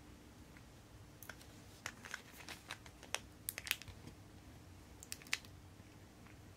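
Small watchmaking tools and parts being handled: a scattered run of light, sharp clicks and taps, about a dozen, between about one and five and a half seconds in, over a faint steady hum.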